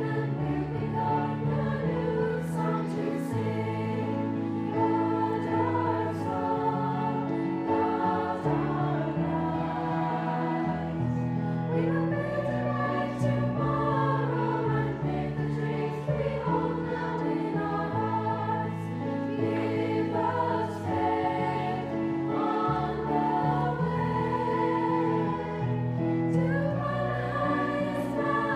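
Girls' school choir singing together, over held low accompaniment notes that change every second or two.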